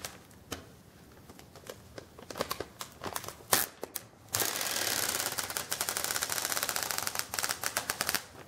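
Apple Watch Edition packaging being opened by hand: a few scattered sharp snaps, then a dense, rapid crackling that runs for about four seconds and stops just before the end, a sound likened to fireworks.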